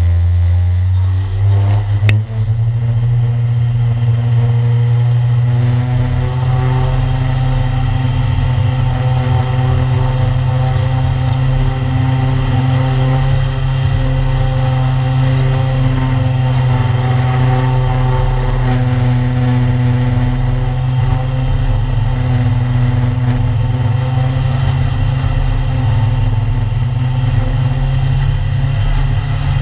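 A 1-litre stock car's engine, heard from inside the cockpit, revving up as the car pulls away in the first couple of seconds, with a sharp knock about two seconds in. It then runs at steady, high revs, rising and falling a little.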